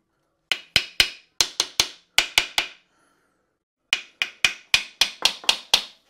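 A metal hammer tapping hard on the aluminium gearbox housing of a BMW K100 to knock it loose from the engine: two quick runs of sharp, ringing blows, about four a second, with a pause of just over a second between them.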